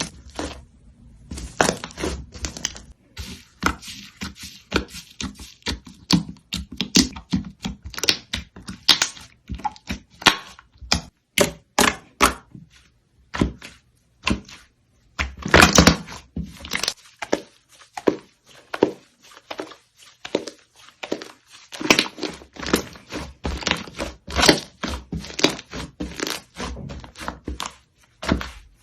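Slime being pressed, squeezed and poked by hand, giving a dense, irregular stream of sharp clicks, pops and crackles with short pauses.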